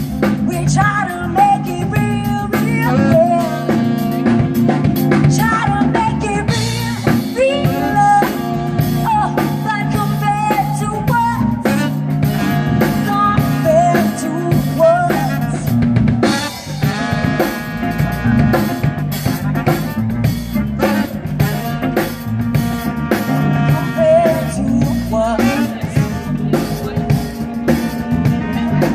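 Live band playing an instrumental break of a soul-jazz song: saxophones, electric guitar, electric bass and a drum kit with rimshots on the snare.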